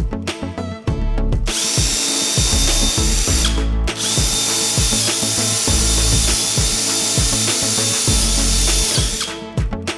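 A power tool's motor running with a steady high whine in two long runs, with a short stop about three and a half seconds in, over background music with a steady beat.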